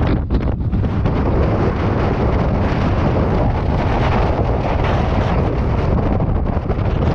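Strong blizzard wind buffeting the microphone: a loud, continuous rush of noise with no let-up.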